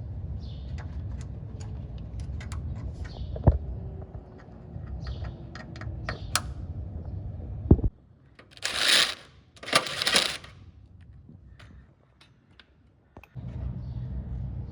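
Scattered light clicks and taps of hand work over a low steady rumble, then two short rasping hisses, each about a second long, close together.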